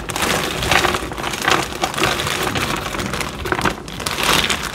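Frozen tomatillos tumbling and clattering out of a crinkling plastic freezer bag into an Instant Pot's inner pot, a dense run of small knocks and rustles.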